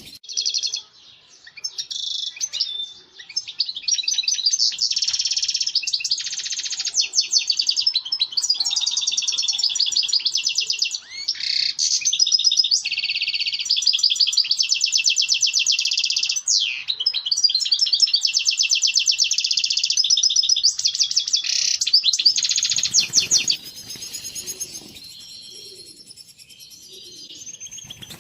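European goldfinch singing its courtship song: a long, fast run of high twittering and trills. The song stops about five seconds before the end, leaving only fainter calls.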